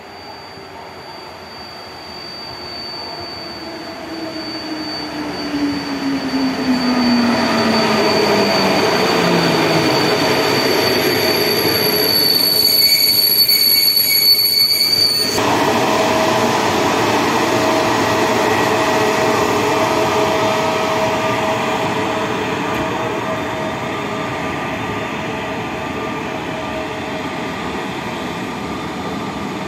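Locomotive-hauled PKP Intercity passenger train pulling into a station and braking to a stop. A tone falls steadily in pitch over the first ten seconds as the train slows, and the brakes give a high-pitched squeal that cuts off suddenly about fifteen seconds in as the train halts. A steady hum from the standing train follows.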